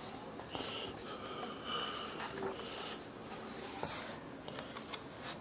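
Pages of a printed book being flipped: a run of soft paper swishes and rustles, with a few light taps from handling.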